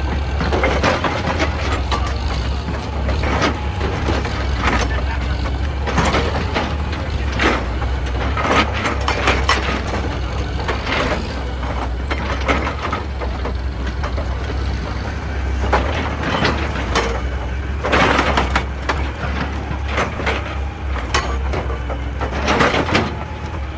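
Excavator's diesel engine running steadily, with irregular knocks, cracks and scrapes of rock and stone as it works.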